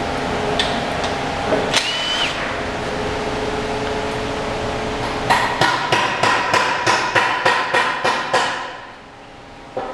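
Rhythmic metallic knocking, like hammering on metal, about three strikes a second, starting about five seconds in and stopping shortly before the end, over a steady background noise.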